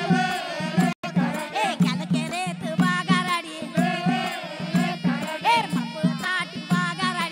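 Folk music: singing over a steady drum beat of about three to four strokes a second, with rattling percussion. The sound cuts out for an instant about a second in.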